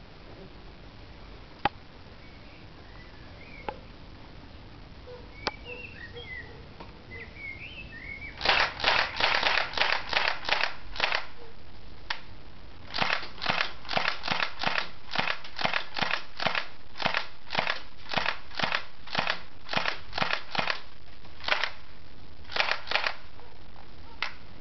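Tokyo Marui Ruger KP85 electric blowback airsoft pistol firing semi-automatic shots, each a sharp snap. It starts with a few lone shots, then a quick run of about ten a third of the way in, and after a short pause a long string at about three shots a second.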